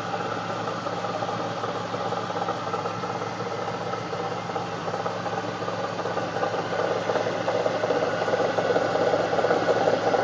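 A 1999 Camaro SS's LS1 5.7-litre V8 idling steadily with an odd mechanical noise running over it, which the owner links to a pulley; the noise grows louder in the last few seconds.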